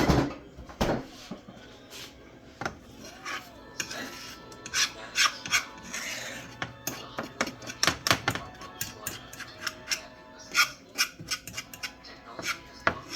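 A cooking utensil scraping and knocking against a skillet in quick, irregular strokes as eggs with cheese are stirred and scrambled.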